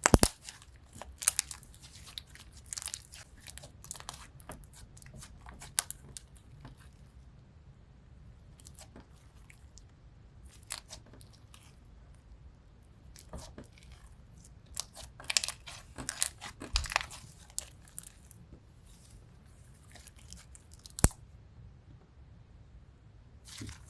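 Crunchy 'Candy Crunch' slime being squished and pressed, giving irregular bursts of sharp crackles and crunches. The crackling is densest near the start and again about two-thirds through, with one sharp snap near the end.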